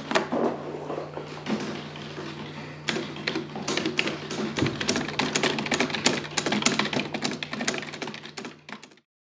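Typing on a computer keyboard: rapid, irregular key clicks that get busier about three seconds in, then fade and cut off near the end. A low steady hum runs underneath.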